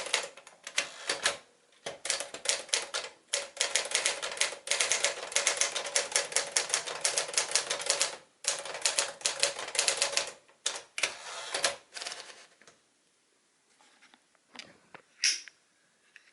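1958 Smith-Corona Clipper manual typewriter being typed on: a rapid run of key strikes with two brief pauses. The typing stops about three-quarters of the way through, followed by a few faint clicks and one short louder noise near the end.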